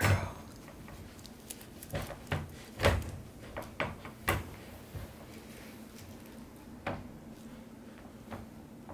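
Wire dog crate rattling and knocking as a Bernese Mountain Dog puppy moves around inside it and picks up a toy: scattered sharp knocks and clanks, the loudest near the start and about three seconds in.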